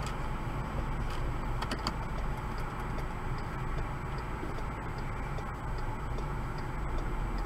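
Steady road and engine noise of a car travelling along a highway, heard from inside the cabin, with faint regular ticking.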